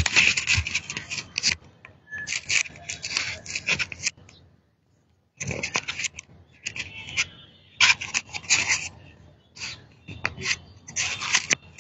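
Handling noise from a clip-on lavalier microphone being adjusted on a shirt collar: irregular scratchy rubbing and scraping as fingers and fabric move over the mic. The sound cuts out completely for about a second midway.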